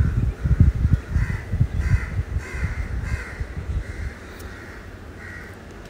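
Crows cawing in a series of short, hoarse calls, about two a second, over a low irregular rumble that dies down about four seconds in.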